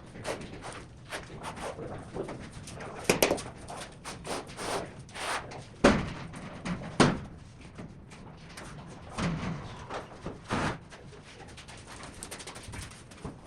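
Irregular knocks and taps, with several louder thumps about three, six, seven, nine and ten and a half seconds in.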